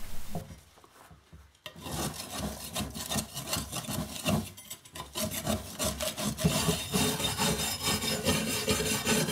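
Wire brush scrubbing dried grass and dirt off a lawnmower blade: rapid, continuous scratchy strokes that start about two seconds in.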